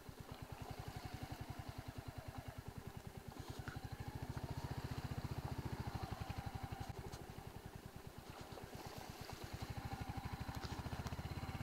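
Motorcycle engine running as the bike is ridden along a rough gravel track: a steady, rapid low thumping that swells a little in the middle and again near the end.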